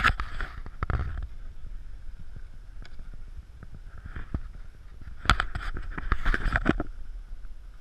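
Skis sliding and scraping over snow in several swishing runs: near the start, about a second in, and again from about five to seven seconds in. Wind buffets the action-camera microphone underneath.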